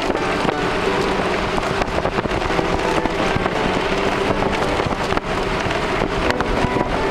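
Steady running noise of a moving vehicle heard from inside, with wind rushing past and frequent small rattles and knocks.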